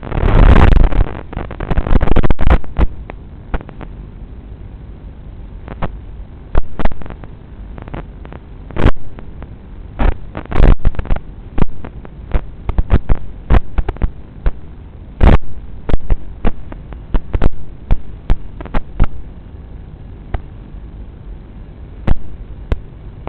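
A loud rushing burst in the first couple of seconds, then irregular sharp crackling pops and clicks over a low hum.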